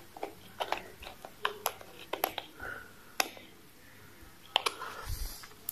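Irregular light metallic clicks, about a dozen, from a small screwdriver tightening the post screws of a Mark Bugs Charm rebuildable dripping atomizer to clamp the coil leads.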